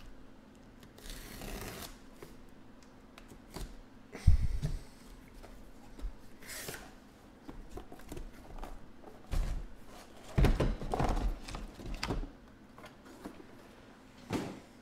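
Cardboard shipping case being opened: tape slit and cardboard flaps rustling, then the sealed boxes inside lifted out and set down with knocks and thumps, the sharpest about four seconds in and a cluster of them around ten to twelve seconds.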